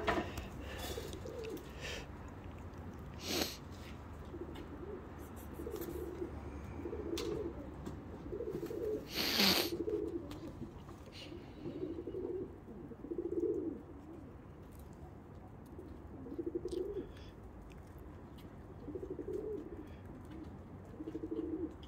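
Feral pigeons cooing, low murmuring calls repeating every second or two. A brief, loud rush of noise about nine seconds in stands out above the cooing.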